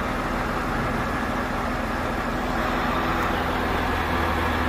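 Truck engine running steadily at low speed, a continuous hum over road and mechanical noise that grows slightly heavier in the low end near the end.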